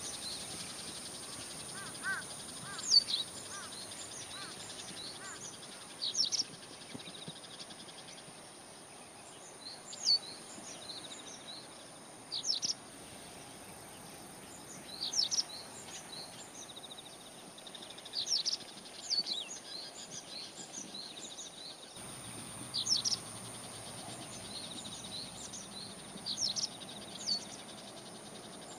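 Birds calling outdoors: short, sharp chirps that sweep downward in pitch, coming every few seconds, over a steady high-pitched insect drone.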